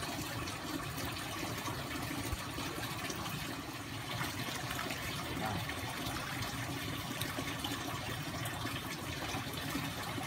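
Steady rushing of running water, even throughout, with a few faint ticks.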